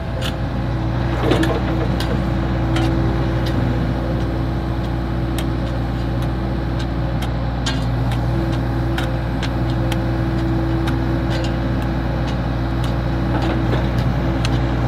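Excavator's diesel engine running steadily under load while it digs, with scattered short knocks and clicks throughout.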